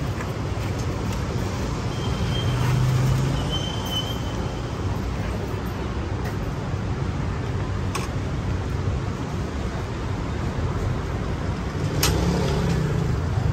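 Steady street ambience of traffic noise, with a low hum swelling twice and a couple of sharp clicks, the louder one near the end.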